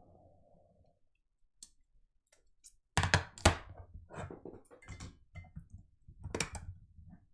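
Handling noise at a repair bench: a run of knocks, clicks and thuds starting about three seconds in, with two loud knocks close together at the start and another loud one about three seconds later.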